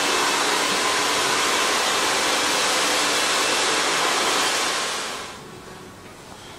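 A hair dryer running with a steady hiss, which stops about five seconds in.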